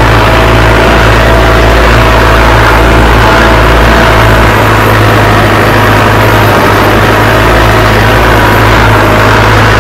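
Mahindra Arjun Novo 605 tractor's 57 hp four-cylinder diesel engine running steadily under load, pulling a spring-tine cultivator through tilled soil in second high gear.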